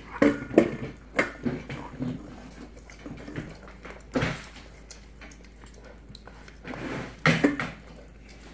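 Dog chewing and crunching a raw chicken leg, bone included, from a stainless steel bowl: irregular sharp crunches and clicks with quieter chewing between them.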